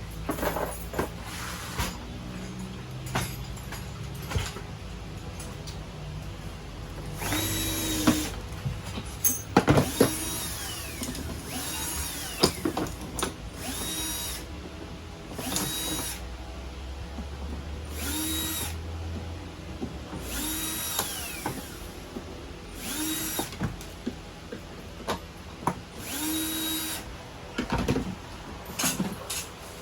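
A handheld power drill-driver run in short bursts of about a second, spinning up with a rising whine and stopping again about a dozen times, as when driving screws during assembly.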